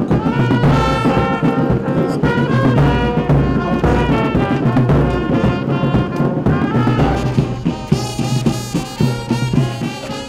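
Brass band music with sustained horn notes over a steady low drum beat, easing off near the end.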